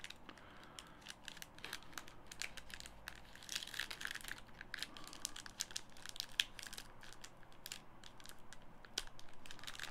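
Crinkling of a hockey card pack's wrapper being handled and pulled at to open it: a run of small, irregular crackles, densest about three to four seconds in and again around six seconds.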